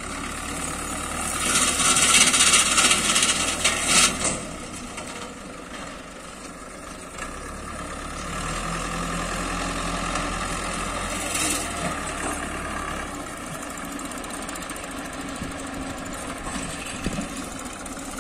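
Türk Fiat 70-56 tractor's diesel engine running steadily as it pulls a rear disc mower through dry grass. A loud rushing noise comes in about a second and a half in and stops sharply about two seconds later.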